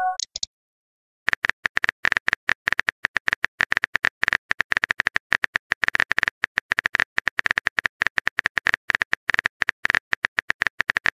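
Keyboard-typing sound effect of a texting app: rapid, even clicks, several a second, starting about a second in, just after the tail of a short message chime.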